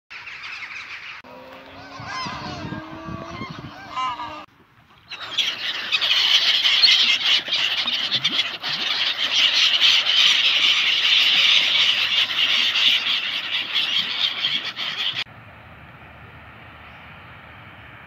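A large flock of black-headed gulls calling over water: a dense, continuous din of many harsh, overlapping calls. Before it come a few seconds of lower honking calls from another flock, and it cuts off abruptly into a steady, low background hum.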